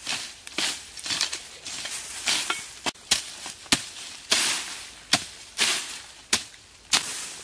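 Repeated strokes of a hand tool chopping through grass into soil, about one and a half sharp hits a second.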